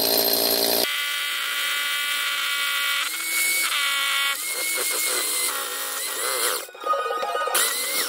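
SDS hammer drill with a long masonry bit boring through a chimney breast. A loud rattling burst runs for about the first second, then a steadier whine that shifts pitch a few times, and another burst near the end.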